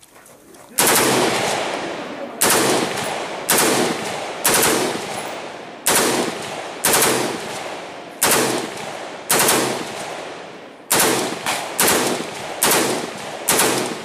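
Heckler & Koch G36K 5.56 mm carbine firing a series of about a dozen sharp reports, starting about a second in, roughly one a second and quickening near the end. Each report is followed by a long fading echo.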